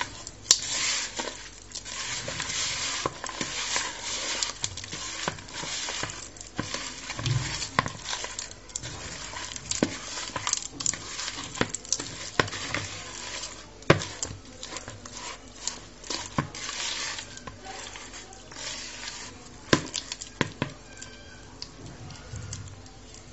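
A hand rubbing and squishing butter with icing sugar, salt and instant coffee in a bowl, creaming them together. The mix scrapes against the bowl's sides, with frequent irregular small knocks.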